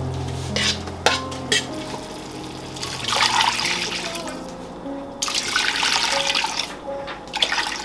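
Water tap running into a sink in two bursts, about three and five seconds in, with a few sharp clicks and knocks in the first second or two.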